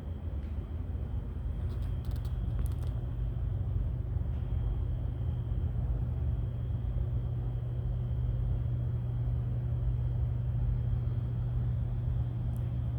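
A steady low rumble with a constant low hum underneath, and a few faint clicks about two seconds in.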